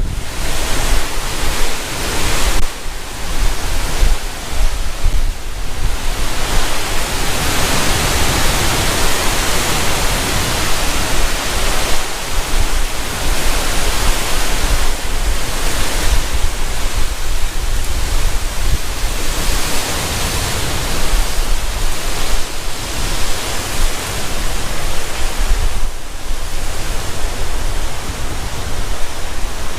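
Strong storm wind buffeting the microphone, a dense rushing noise with an irregular low rumble, over rough Gulf surf.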